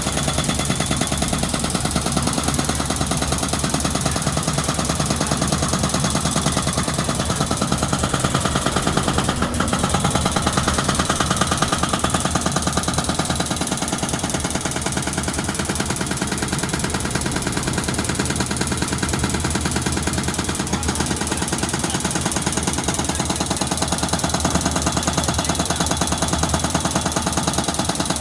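Excavator-mounted hydraulic breaker hammering concrete in a rapid, unbroken stream of blows, breaking up a concrete box culvert, with the excavator's engine running steadily underneath.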